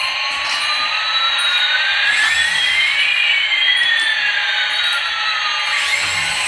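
Small electric motors of a toy RC helicopter whining with a steady whirr, one tone rising in pitch while another falls.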